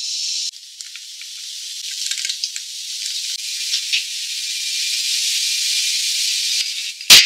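Beer foam fizzing in a glass: a steady hiss of popping bubbles with faint crackles scattered through it. A single sharp knock comes near the end.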